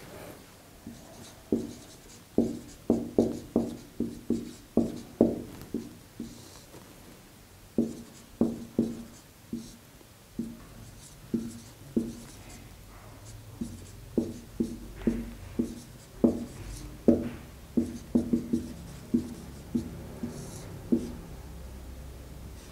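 Marker writing on a whiteboard: an irregular run of short strokes and taps, a few a second, with brief pauses between words.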